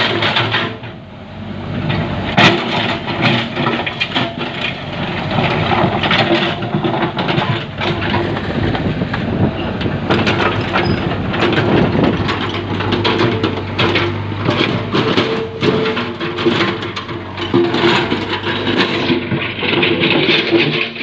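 Komatsu backhoe's diesel engine running steadily under working load, with frequent sharp knocks and clatters from the digging.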